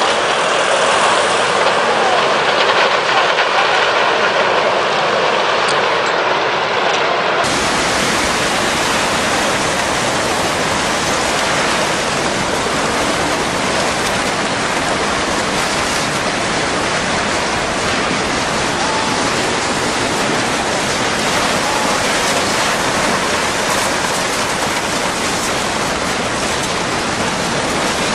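Steady, loud rushing noise of tsunami floodwater. About seven seconds in it turns fuller and deeper, and stays that way.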